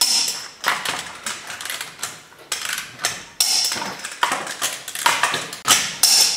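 Torque wrench ratcheting and clicking on a truck wheel's lug nuts as they are torqued to 100 foot-pounds, with metal clinks of the socket: a run of irregular, sharp metallic clicks and short rattles.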